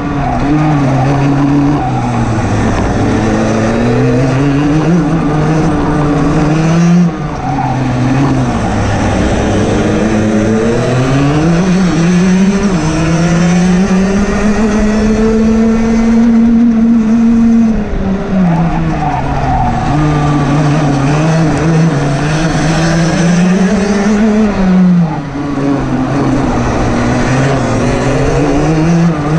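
Rotax DD2 kart's 125 cc single-cylinder two-stroke engine at racing speed, its pitch climbing as it accelerates and falling off into corners several times. The longest high, steady stretch is in the middle.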